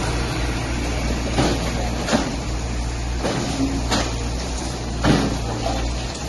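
Excavator's diesel engine running steadily, with sharp knocks and clanks every second or two as its bucket breaks into a concrete building frame.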